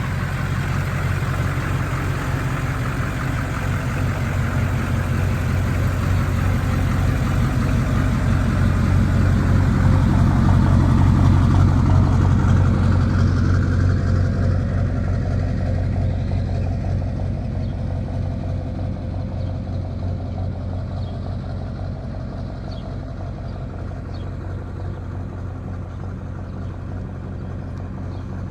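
A motor vehicle's engine running at a steady speed, growing louder to a peak about halfway through and then slowly fading.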